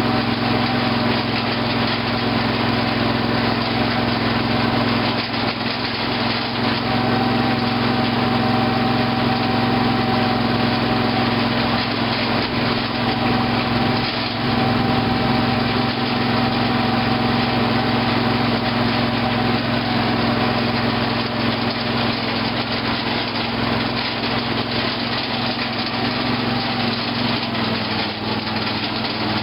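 Briggs & Stratton 18.5 hp Intek engine of a Craftsman lawn tractor running steadily, its pitch dropping slightly near the end.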